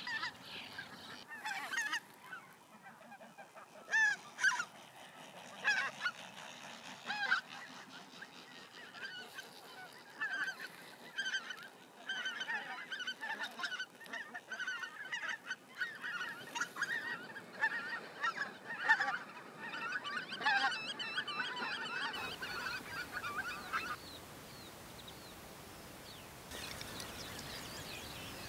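A flock of greater white-fronted geese calling: a few separate loud calls at first, then many overlapping calls in a dense chorus. The calling stops about three-quarters of the way in, leaving a faint steady background noise.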